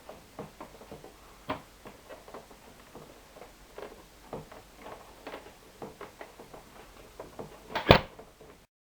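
Plastic glove box compartment of a Vespa GTS scooter being worked loose by hand: a run of small plastic clicks and knocks, with one louder knock near the end.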